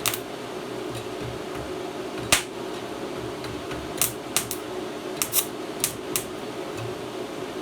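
Welding machine's cooling fan humming steadily, with sharp snaps: one a little over two seconds in, then about six in quick succession between four and six seconds in, as the electrode is touched to the metal in test strikes.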